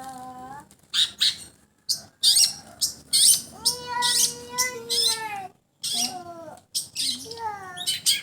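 Long-tailed shrike (cendet) singing a varied song: quick, sharp high notes mixed with lower, sliding notes, one of them held for about two seconds in the middle.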